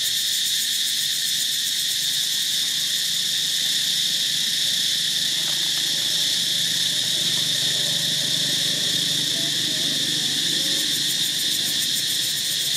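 Steady, high-pitched chorus of buzzing insects, holding an even level without a break.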